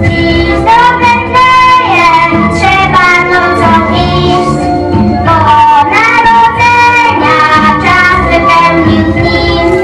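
Young voices singing a song over instrumental backing music.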